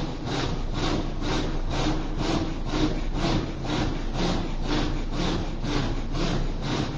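A man's rapid, rhythmic breathing close to the microphone, about two strokes a second, evenly paced, as in breath-led silent dhikr of the heart.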